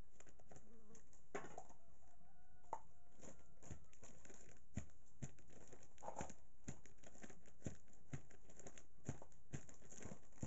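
Wooden tamper packing sawdust substrate down inside a plastic mushroom fruiting bag: irregular dull thuds about once or twice a second, with crinkling of the plastic bag.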